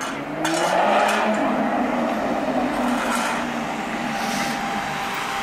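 A sports car engine running and revving as the car pulls away slowly. A sharp rev comes about half a second in, then the engine runs on with its pitch rising and falling gently.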